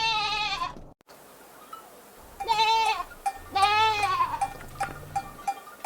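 Goat bleating three times, each bleat quavering. The first fades out about a second in, and two more follow close together in the middle.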